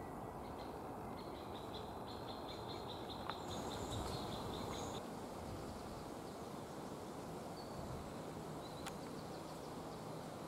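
Outdoor ambience: steady background noise, with a rapid run of short high chirps from about one to five seconds in and a brief higher whistle over it.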